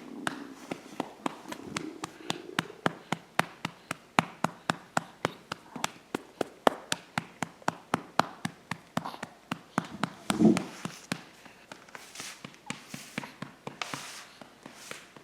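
A hand patting a baby's back to bring up a burp: a steady run of sharp pats, about three a second. About ten seconds in, the baby lets out one short, loud burp; after it the pats give way to softer, brushing strokes.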